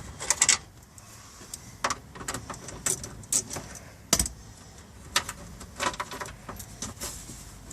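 Scattered metallic clicks, clinks and knocks of hand tools on a vehicle's plastic dash trim as the 7mm screws of the panel under the steering column are taken out, with one louder knock about four seconds in.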